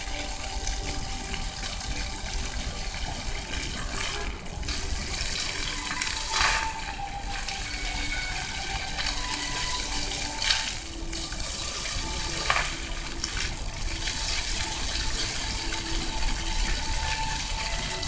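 Floor fountain jets spurting up from nozzles set in wet paving and splashing back down: a steady rush of falling water, with three brief louder surges.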